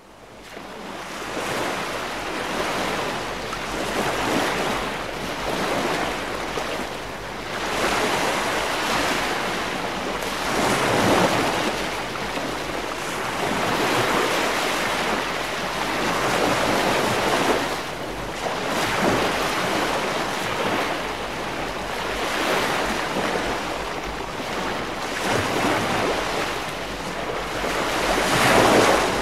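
Ocean surf washing onto a beach, fading in at the start, then swelling and easing every few seconds.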